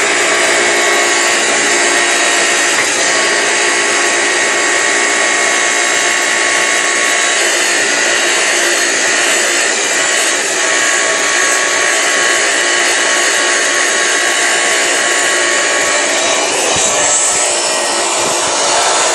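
Loud, steady whir of a small electric motor, with a brief shift in its sound near the end.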